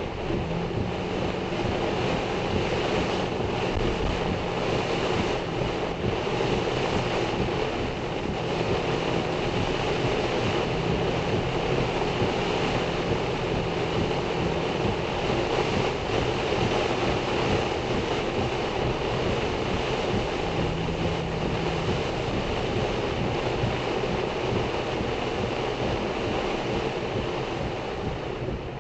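Heavy wind-driven rain beating on a moving car's roof and windshield, heard from a dashcam inside the car, with gusting wind and a low steady hum of the car underneath.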